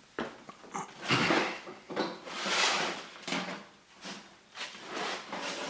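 Knocks, clicks and sliding, scraping noises of objects being handled and moved, loudest about one to three seconds in.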